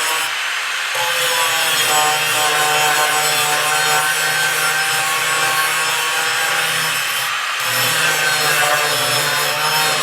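Angle grinder running under load, grinding into the rusted steel seam along the bottom of a Chevrolet C10 door to separate the outer skin from the inner, a steady high whine over the rough grinding noise. It eases off briefly about a second in and again near the end.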